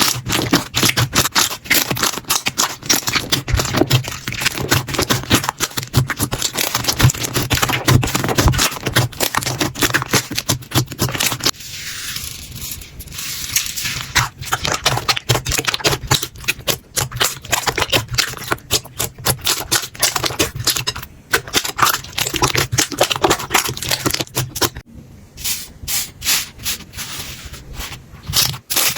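Hands pressing, squeezing and poking slime, giving dense, irregular crackling and popping clicks that thin out briefly near the end.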